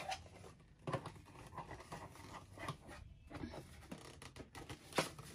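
Faint handling noise of a plastic LED vanity mirror being worked onto its base: light scraping and rubbing, with a small click about a second in and another near the end.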